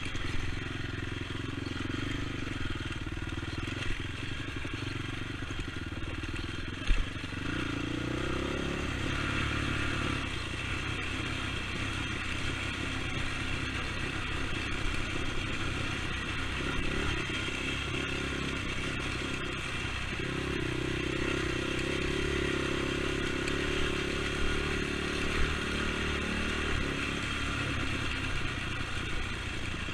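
Single-cylinder four-stroke engine of a Honda TRX450 sport ATV running under way, its pitch rising and falling with the throttle, with a couple of sharp knocks from the machine over the terrain.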